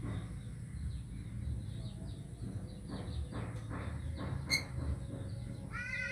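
Birds chirping faintly in the background, with one sharp click about four and a half seconds in and a harsh call with several stacked tones near the end.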